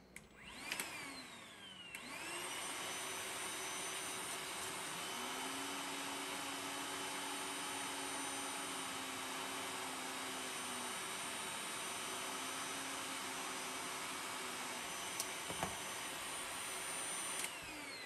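Milwaukee M18 cordless vacuum switched on about a second in, spinning up to speed, then running steadily with a whine over rushing air while an airflow meter is held in its suction intake; it is switched off near the end and winds down.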